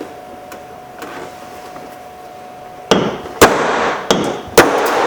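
Hammer striking a punch four times in quick succession to knock out the centre of a door-handle rivet. The sharp knocks begin about three seconds in.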